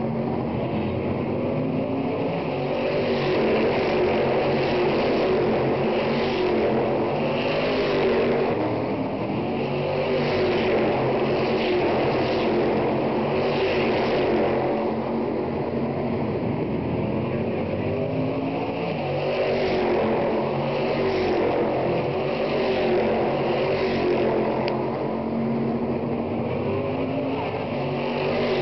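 Stock Car Brasil V8 race cars running on the circuit, their engines heard continuously as cars come past the fence. Several engines overlap, their pitch rising and falling.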